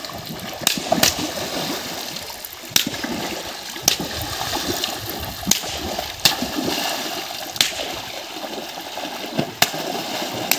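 Shallow river water sloshing and splashing as people wade through it, cut by sharp slaps of sticks striking the water's surface at irregular intervals, about nine in all.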